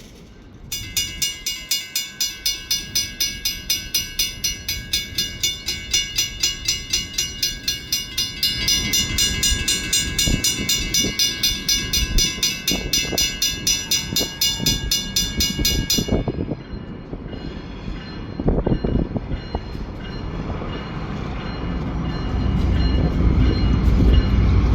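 Railroad grade-crossing bell ringing steadily about twice a second, then falling silent about 16 seconds in. Meanwhile a diesel freight train's low rumble and wheel knocks grow louder as it draws near.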